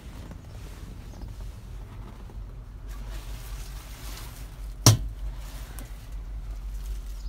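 A low steady rumble with faint handling noise, and one sharp knock about five seconds in.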